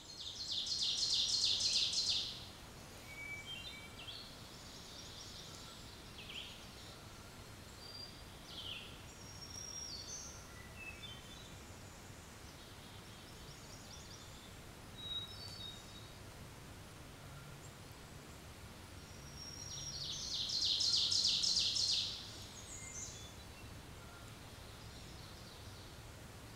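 Woodland birds singing: one loud, rapid, high trilled song about two seconds long at the start and again about 20 seconds in, with scattered softer chirps and short whistles from other birds in between.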